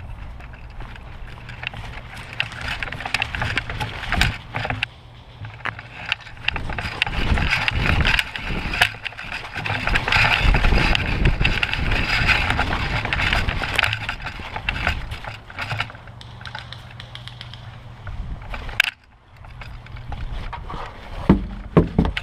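Crunching, scraping and rustling of a player moving close to the microphone, footsteps and gear handling, loudest in the middle, with a few sharp knocks near the end.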